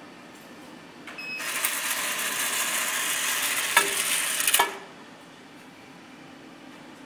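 Automatic envelope dispenser's motorised feed running for about three seconds as it pushes an envelope out onto the tray: a steady hissing rush of the mechanism and sliding envelope, with two sharp clicks just before it stops abruptly.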